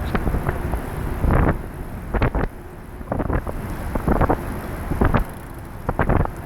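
Wind buffeting the microphone of a moving ride, in irregular gusts about once a second over a steady rush of air.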